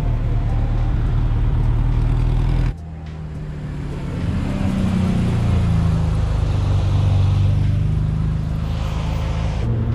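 Car engine sounds: a steady low idle, then after an abrupt cut about three seconds in, another car's engine growing louder as it pulls through, its revs briefly rising and falling before settling.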